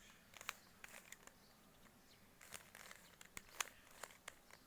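Plastic Rubik's cube being turned by hand: several short, light clicks and clacks of its layers snapping round, scattered unevenly, the sharpest a little after three seconds in.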